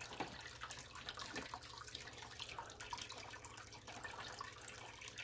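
Aquarium filter running: water trickling and splashing from its outflow into the tank, over a steady low pump hum, with a few light clicks.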